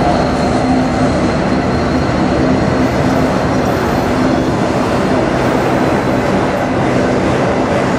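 Freight train's autorack cars rolling past close by: a steady rumble of steel wheels on the rails.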